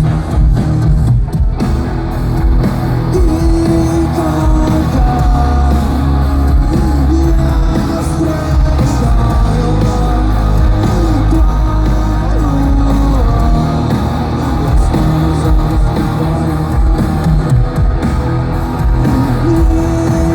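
Live rock band playing loud: electric guitars, bass and drums, with singing over them, heard through the concert sound system.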